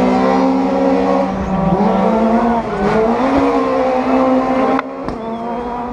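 Rally car engine running hard at high revs, its pitch stepping down and climbing again with the gear changes, with a sudden break in the sound near the end.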